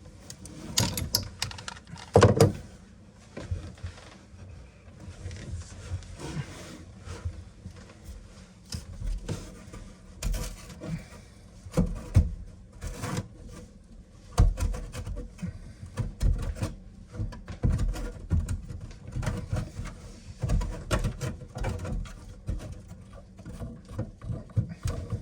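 Irregular knocks, clicks and scraping of tools and faucet parts being handled during a kitchen faucet installation, with a sharper knock about two seconds in.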